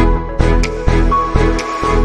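Electronic background music; the heavy beat drops out for a short break, leaving sustained chords and light percussion.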